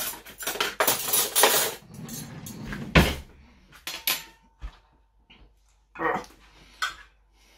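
Metal cutlery rattling as a kitchen utensil drawer is rummaged through, then one sharp knock about three seconds in. After it come a few scattered light clinks and taps of utensils.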